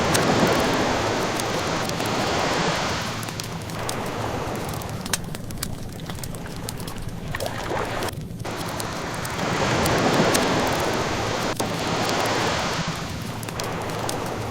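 Ocean waves washing in, swelling twice, near the start and again about ten seconds in, with small pops and crackles of a burning wood fire scattered throughout.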